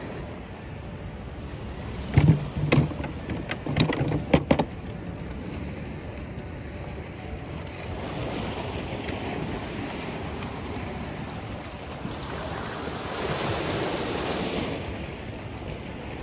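Sea waves washing against a rocky shore, with a wave surging in and growing loudest a little before the end. A quick run of sharp knocks and thumps comes about two to four and a half seconds in.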